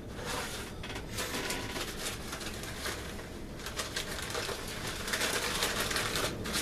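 Packing material rustling and crinkling as a boxed Funko Pop figure is unwrapped and pulled out of a shipping box, with many small crackles.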